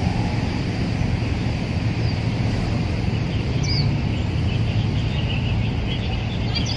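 Steady low rumble of city-park background noise, with a few short bird chirps scattered through it.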